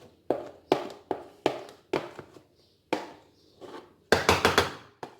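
Repeated sharp knocks of a kitchen utensil against a bowl or mould as thick whipped-cream ice cream mixture is scraped and spooned out, about two a second, ending in a quick run of louder knocks about four seconds in.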